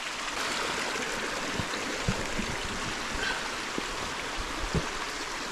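Hot spring water running steadily, with a few faint knocks.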